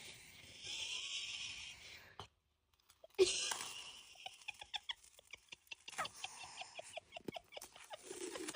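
A man snoring: a hissing breath, a short silence, then long rattling, fluttering snores.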